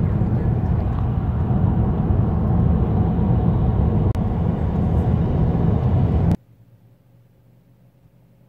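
Steady low rumble of a moving car's road and engine noise, which cuts off suddenly about six seconds in, leaving only a faint hum.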